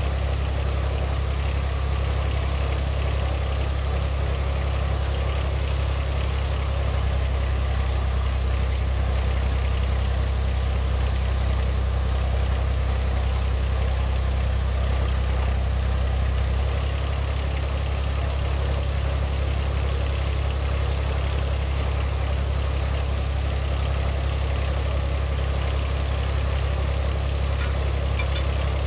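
Two-ton mini excavator's diesel engine idling steadily, a low hum that shifts slightly about seven seconds in and again around seventeen seconds.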